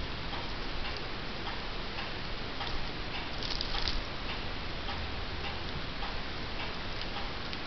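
Faint ticking over a steady hiss, with a brief rustle about three and a half seconds in as the kitten tussles with a wand toy on the couch fabric.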